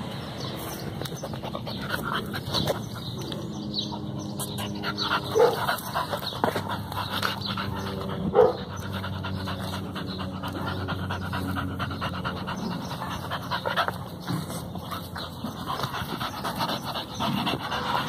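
Boxer–pit bull mix dog panting hard, open-mouthed, on a walk. Two short, sharp, louder sounds break in about five and eight seconds in.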